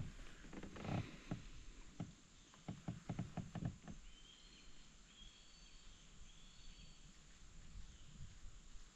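Faint clicks and taps from a spinning rod and reel being handled in a kayak, most of them in the first four seconds. After that, a few short high chirps from an animal sound in the background.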